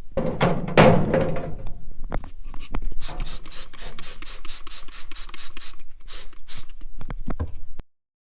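Clatter of parts being handled, then degreaser sprayed from a trigger spray bottle in quick squeezes, about four short spritzes a second; the sound cuts off suddenly near the end.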